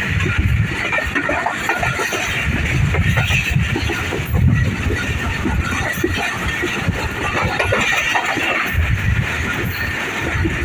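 Passenger train running at speed, heard from an open coach window: a steady, uneven low rumble of the running train with a constant hiss of rushing air.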